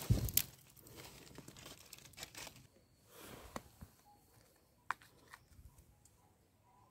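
Rustling and small crunches of dry leaves and stony soil as a white wild mushroom is cut free with a knife and pulled out by hand. There are a few sharp clicks along the way.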